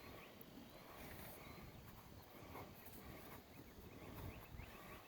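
Near silence: faint outdoor background with a low rumble.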